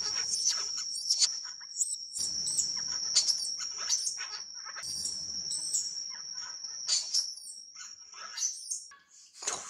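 Baby macaque crying in repeated short, high-pitched squeals, several a second at times, over a steady high-pitched drone.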